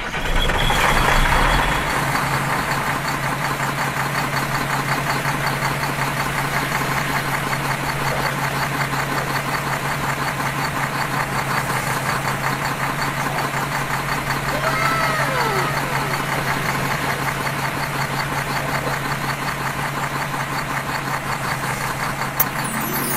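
Battery-operated toy vehicle running: a steady mechanical hum with a fast, even rattle.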